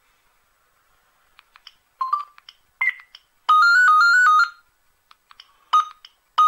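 A Gigaset C620A cordless handset previewing its alarm-clock melodies: short key beeps and clicks as the melodies are scrolled, then about a second of a ringtone, a rapid two-note trill that stops abruptly. The same tune starts again near the end.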